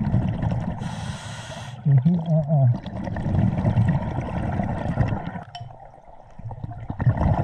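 Underwater sound of a scuba diver breathing through a regulator in a strong river current: a hissing inhale about a second in, then rumbling, gurgling exhaust bubbles and water rushing past the microphone. A brief low falling tone sounds about two seconds in.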